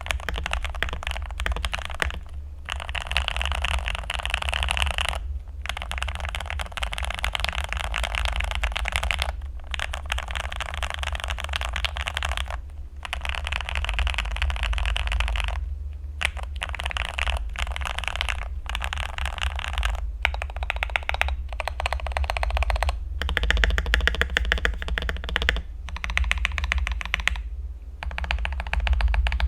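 Continuous fast typing on an Akko 3098N mechanical keyboard with lubed Gateron Milky Yellow linear switches, tape-modded and foam-filled for a creamy, thocky sound. The keystrokes come in quick runs with brief pauses every few seconds.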